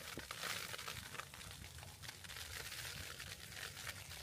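Tent fabric rustling and crinkling, made of many fine irregular crackles, over a low steady rumble.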